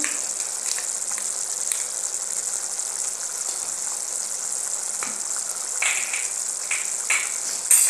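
Tomato pizza sauce simmering in a pan with a lump of butter melting in it: a steady high sizzling hiss, with a few soft pops toward the end and a sharper click just at the end.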